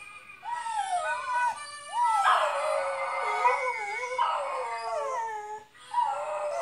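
A dog howling along to a mouth organ: long wavering howls that slide up and down in pitch, getting louder about two seconds in, with a short break near the end.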